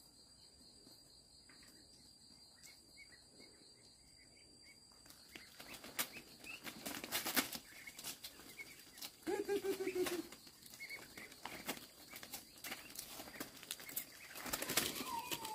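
A steady high insect drone with faint bird chirps. From about five seconds in, the drone stops and a run of sharp clicks and rustling knocks follows, with a short pitched call near ten seconds.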